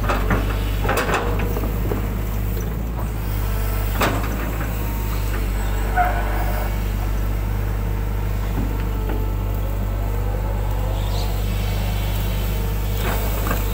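Hydraulic excavator's diesel engine running steadily under load as the bucket digs mud out of a ditch. Several clanks and knocks from the bucket and boom come in the first second or so, with the sharpest about four and six seconds in.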